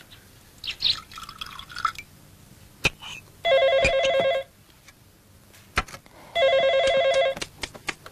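Telephone ringing twice, each ring a trilling bell tone about a second long, a little under 3 s apart. A sharp click comes shortly before each ring.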